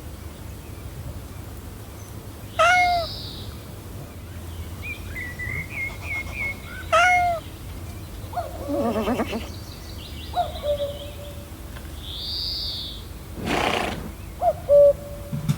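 A series of recorded animal calls. A short meow-like call repeats about every four to five seconds, mixed with bird chirps and other brief animal calls.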